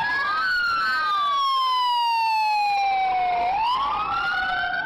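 Emergency vehicle sirens wailing: a slow wail that sweeps up, falls for about three seconds and sweeps up again near the end, with a second siren overlapping it at the start.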